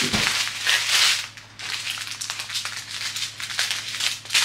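Small plastic bags of diamond painting drills being handled and shuffled: the bags crinkle with many fine clicks, loudest for about the first second, then softer.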